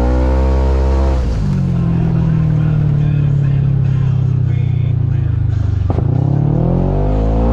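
Kawasaki Teryx KRX 1000 side-by-side's parallel-twin engine pulling under throttle, then easing off a little over a second in to a lower, pulsing run for several seconds. After a sharp click near six seconds the engine climbs in pitch again under throttle.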